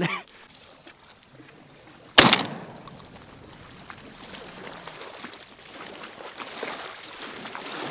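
A single shotgun shot about two seconds in, sharp with a short ringing tail, followed by steady wind and water moving against the shore.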